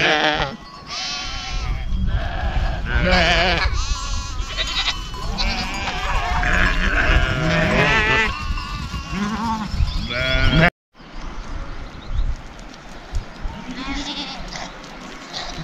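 A flock bleating, with many overlapping, quavering bleats. Near eleven seconds in the sound cuts out briefly, and after it the bleats are fewer and quieter.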